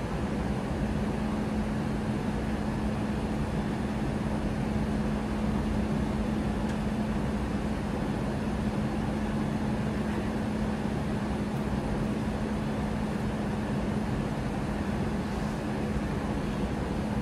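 Steady in-flight cabin noise of an Airbus A320 with CFM56-5B engines, heard from a window seat: an even rush of air and engine drone with a constant low hum.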